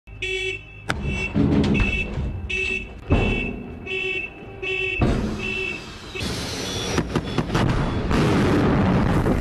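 A horn or alarm sounds in short repeated blasts, with a few heavy clunks between them. About six seconds in, the roar of a Yars ICBM launch starts and stays loud as the missile leaves its launcher.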